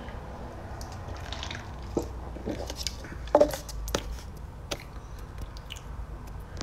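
Sips and swallows from a paper cup: small wet mouth sounds and scattered light clicks, the loudest a little after three seconds in.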